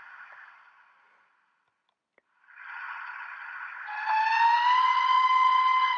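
Hornby TTS sound decoder in a OO gauge Hornby Schools Class locomotive playing steam sounds through its small speaker: a steam hiss fades away about a second in and comes back about two and a half seconds in, and near four seconds a long steam whistle starts, rising slightly in pitch and then held. The decoder is answering on its newly programmed address.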